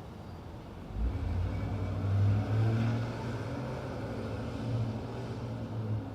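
A motor vehicle's engine running close by: a steady low hum that comes in about a second in and holds to near the end.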